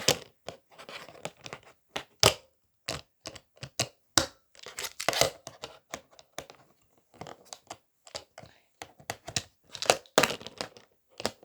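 Irregular run of short, sharp pops and clicks as the bubbles of a plastic pop-it fidget spinner are pressed, with some crinkly handling noise between them.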